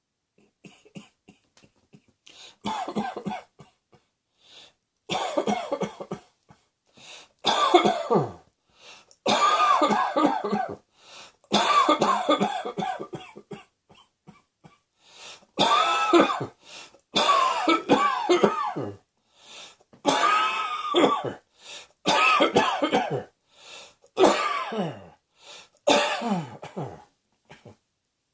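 A person coughing over and over in about eleven loud bouts, roughly one every two seconds. Several coughs carry a voiced tone that falls in pitch at the end.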